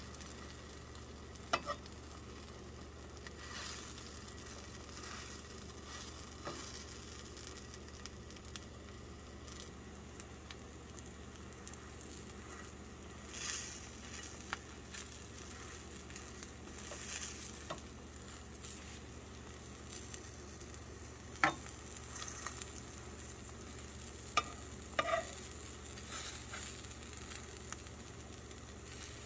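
Egg-dipped bread frying in a pan with a faint, steady sizzle, and a few sharp clicks of a metal spatula against the pan, mostly in the later part.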